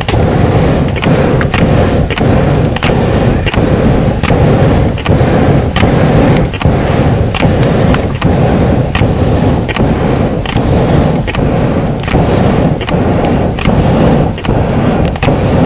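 Handmade double-acting piston bellows pumped steadily, about two clicks a second as the stroke reverses and the valves snap over, over a continuous rumbling rush of air into the furnace.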